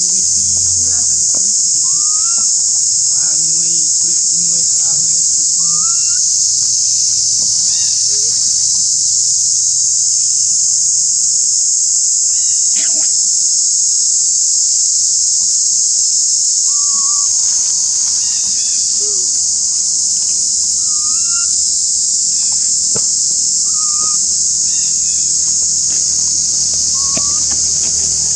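Steady, loud, high-pitched drone of an insect chorus, such as cicadas, in dry forest. Short rising chirps, like bird calls, cut through it every few seconds.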